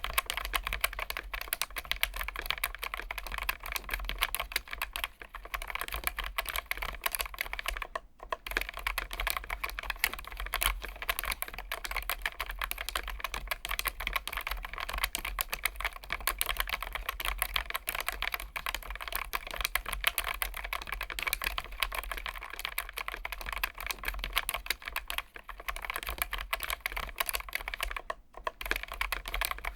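Fast, continuous typing on a Keychron K1 Max low-profile mechanical keyboard with Gateron low-profile switches, a dense run of key clicks with two brief pauses, one about eight seconds in and one near the end.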